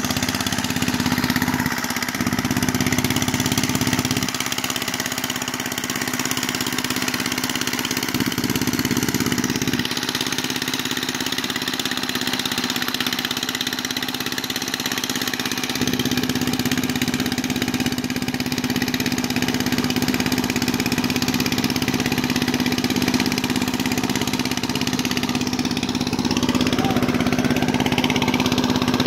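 Small single-cylinder engine of a walk-behind mud-boat power tiller running steadily as it works a flooded rice paddy, a constant engine note with its low rumble dropping away and coming back a few times.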